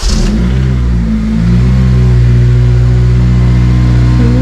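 Honda Civic FN2 Type R's 2.0-litre four-cylinder engine catching on a start, its revs flaring and then dropping to a steady idle about a second and a half in.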